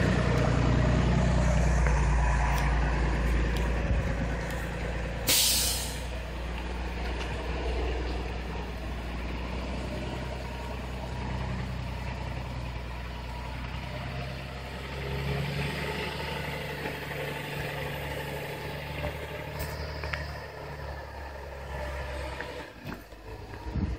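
Dynamax motorhome's engine pulling up a steep driveway, loud at first and fading as the coach climbs away. A short sharp hiss cuts in about five seconds in.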